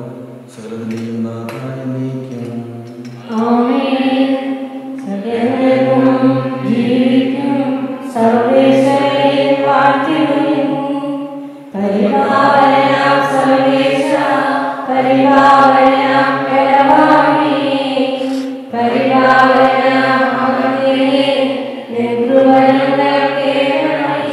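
Sung church liturgy: a man's voice chanting, then singers taking up the chant in long held phrases with short breaks between them.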